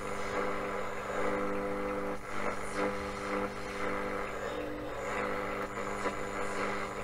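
Panasonic RF-2400 portable radio's speaker giving steady static with a buzzing interference hum, tuned with no station coming in.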